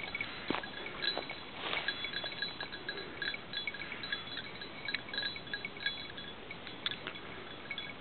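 Small collar bells on hunting hounds jingling irregularly as the dogs move through brush, with a few sharp clicks and rustles mixed in.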